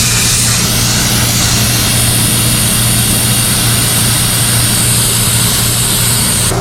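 Gas station air compressor running with a steady hum while compressed air hisses loudly from the air hose at a bicycle tire's valve; the hiss cuts off sharply near the end as the air stops, and the hum carries on.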